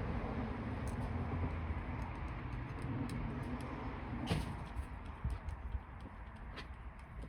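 Low rumble of a passing vehicle fading away, with scattered light clicks and taps from hands and tools working the wires onto an outlet; one sharper click about four seconds in.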